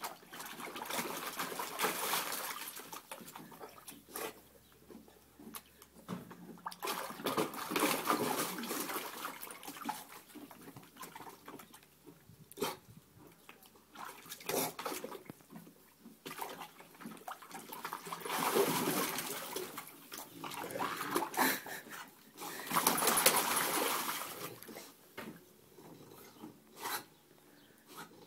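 English bulldog breathing heavily through its short muzzle, in long noisy breaths of two to three seconds each with quieter gaps between, and a few short clicks in between.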